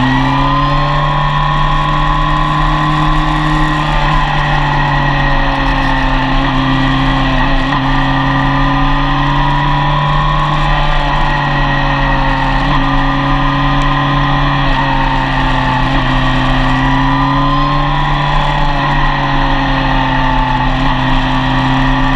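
Yamaha FJR1300's 1298 cc inline-four engine pulling steadily at speed, its pitch easing down and climbing back up several times, with a steady rush of wind and road noise.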